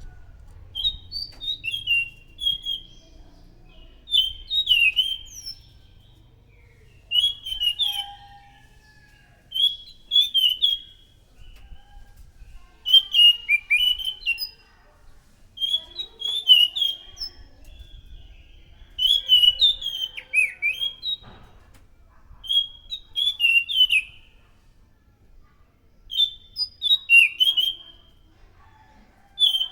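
Anis macan thrush singing in loud, clear whistled phrases. Each phrase is about a second of quick, sharp notes, and a new one comes every two to three seconds.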